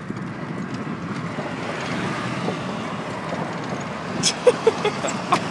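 Golf cart running along, a steady driving noise with wind buffeting the microphone and a few short knocks and rattles near the end.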